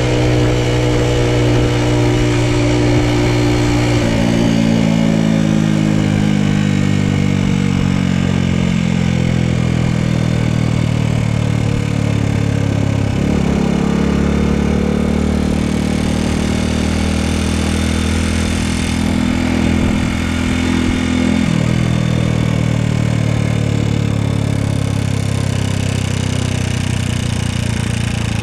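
Honda Super Cub's single-cylinder four-stroke engine running under way, its pitch jumping abruptly about 4, 13 and 21 seconds in and drifting slowly between. The owner says this engine is making an abnormal noise.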